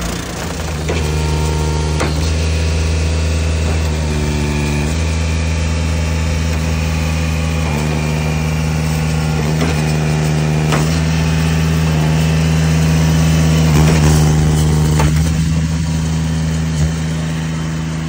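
Engine of an Eastonmade log splitter running steadily under load, its pitch rising about a second in and dropping about five seconds in, with a sharp knock every few seconds as wood is split.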